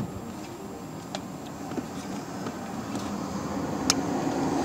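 Hands working plastic dashboard trim and connectors beside a car's steering column: a few faint clicks, then one sharp plastic click near the end, over a steady background noise that grows louder toward the end.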